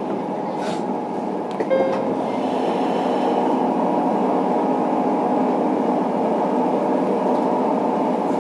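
Running sound heard inside a JR Kyushu 103-series 1500 electric train's motor car: a steady rumble of motors and wheels on the rails. It grows a little louder about two seconds in.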